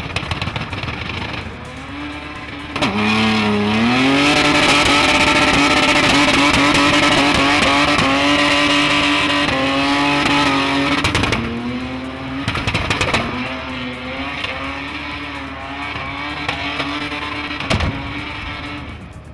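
A drifting SUV's engine held at high revs while its tyres spin and squeal on the pavement. The revs dip and climb back about three seconds in, stay high and loud until about eleven seconds, then ease off as the slide goes on.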